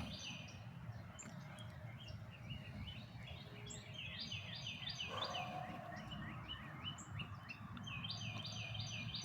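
A songbird singing phrases of rapidly repeated high chirps, each note slurring downward, with short pauses between phrases, over a steady low background rumble.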